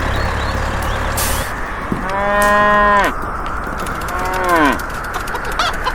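A cow mooing twice: a loud call of about a second, rising then falling, followed by a shorter call that falls in pitch.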